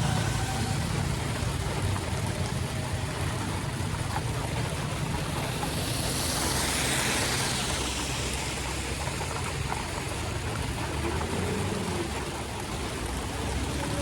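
Steady rush of floodwater with a low rumble, and a louder hiss that swells and fades about seven seconds in.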